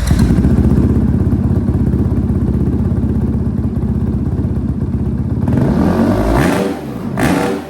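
Honda 450 four-stroke dirt bike engine with an aftermarket exhaust, running loudly at a steady fast idle just after starting. From about five and a half seconds in it is revved up and down a couple of times.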